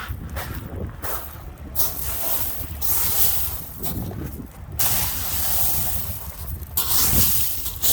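Wind buffeting the microphone with a steady low rumble, and lake waves washing onto the beach in hissing surges of one to two seconds each.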